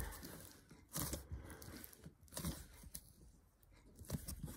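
Purple slime with pieces of crumpled aluminium foil in it, squeezed and kneaded by hand: the foil crinkles and crackles in irregular bursts, with a quieter spell past the middle.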